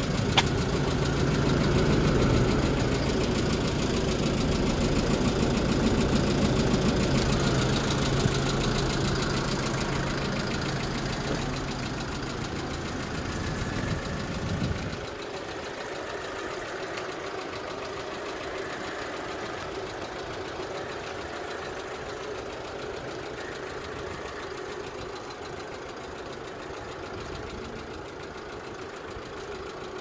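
Kia Bongo III truck's diesel engine idling steadily, heard close to the underside of the truck at first and then much quieter and more distant from about fifteen seconds in.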